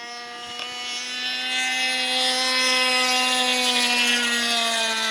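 A radio-controlled model airplane's glow engine runs in flight with a steady buzzing note. It grows louder about a second and a half in and sags slightly in pitch near the end. Having dropped a couple thousand RPM, it sounds to the flyers like it is running richer.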